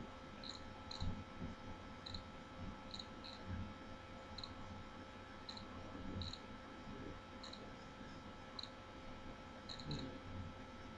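Quiet room tone with steady electrical hum, dotted with short, faint high-pitched chirps about once a second at uneven spacing, and a few soft low bumps.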